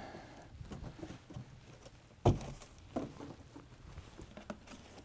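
A large empty cardboard box being lifted and moved aside, set down with a dull thump a little over two seconds in, among soft cardboard rustles, taps and shuffling steps.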